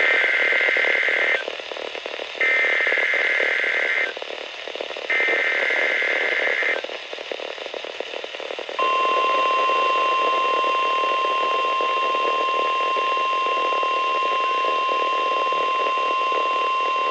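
NOAA Weather Radio alert broadcast: three short bursts of SAME digital header data, each about a second and a half long, then the steady single-pitch 1050 Hz warning alarm tone, held for about eight seconds, over radio hiss. It is the weekly test of the National Weather Service warning alarm.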